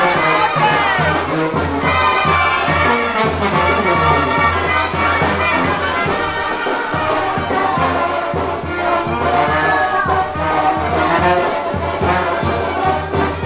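Brass band music: trumpets and trombones playing over a low bass that pulses steadily.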